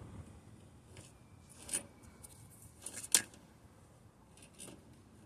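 A few faint handling clicks and rustles, the sharpest one about three seconds in.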